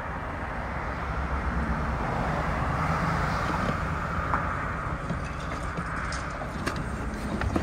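Roof tear-off job-site noise: a steady rumble and hiss with a few light knocks and clicks of tile debris and tools on the deck.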